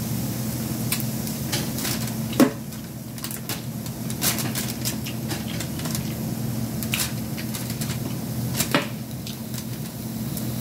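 Metal fork and knife clinking and scraping on a plate of king crab legs: a few sharp clinks, the loudest about two and a half seconds in, over a steady low hum.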